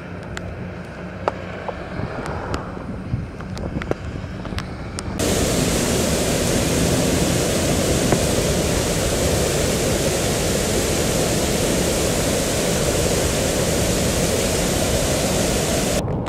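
Floodwater pouring over a concrete dam spillway in flood, a loud steady rush of water that starts abruptly about five seconds in and drops away near the end. Before it, rain and tyres hissing on a wet highway, with scattered sharp ticks.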